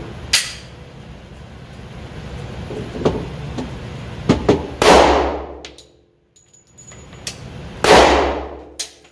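Two 10mm pistol shots from a subcompact Glock 29, fired with handloaded 180-grain rounds, about three seconds apart, each ringing out for about a second. Fainter sharp cracks come earlier, about half a second and three seconds in.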